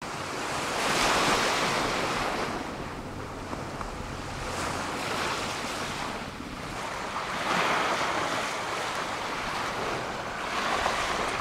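Small waves washing onto a sandy beach, the surf swelling and fading about every three seconds, with some wind on the microphone.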